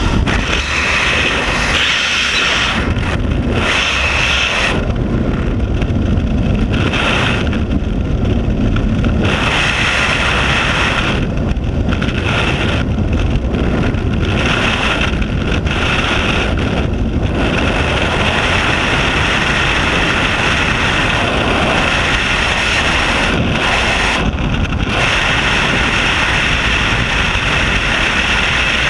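Freefall wind rushing over a skydiver's head-mounted camera microphone, loud and continuous, with the hiss thinning and returning several times. Aircraft noise from the open rear ramp is heard at the exit at the very start.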